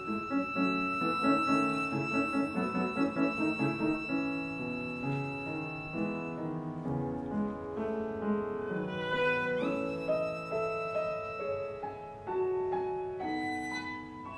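Viola and piano playing classical music. The viola holds a long high note over rapid repeated piano chords, then about ten seconds in slides up to another high held note while the piano goes on underneath.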